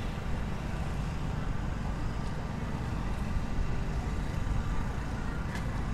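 Steady low outdoor rumble with no distinct event standing out.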